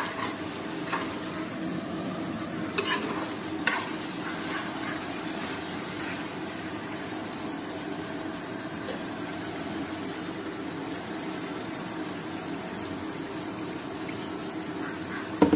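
Pork and mustard greens sizzling as they fry in a steel kadai while a ladle stirs them, with two sharp clinks of the ladle against the pan about three seconds in. Near the end, water is poured into the hot pan to let the meat boil.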